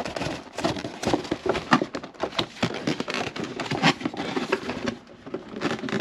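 Cardboard box and plastic packaging being handled during an unboxing: irregular crinkling, crackles and light taps.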